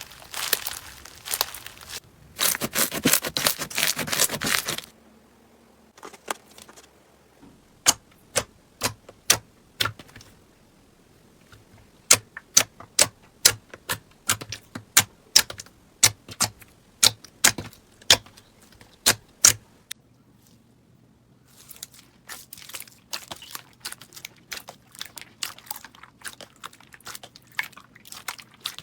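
Slime being handled: dense crackling and crunching for the first few seconds, then a run of sharp separate pops about two a second, then dense crackling again near the end.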